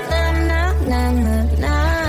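Pop music: a deep, held bass under sustained pitched melody lines that change notes every half second or so, with no clear words.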